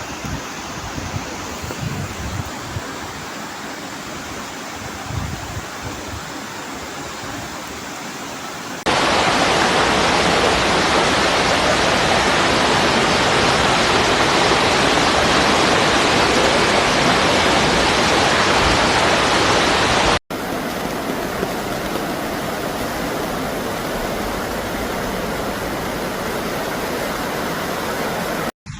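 Steady rushing noise of heavy rain and running floodwater. It changes abruptly twice, about 9 s and 20 s in. The middle stretch is the loudest.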